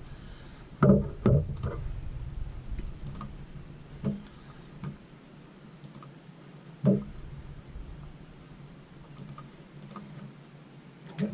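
A few scattered clicks and knocks from computer work, mouse clicks and light bumps at the desk, over a quiet room background; the strongest come about a second in and again near seven seconds.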